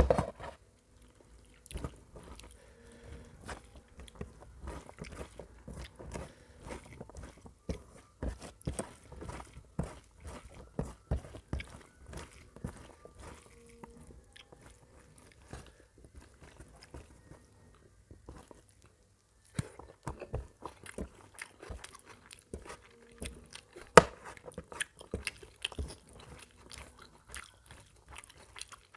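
Close-miked eating of curry-soaked rice and mutton by hand: wet chewing and lip-smacking, with squelches of rice being mixed with the fingers. A short lull about two-thirds of the way through, and one sharp louder click near the end.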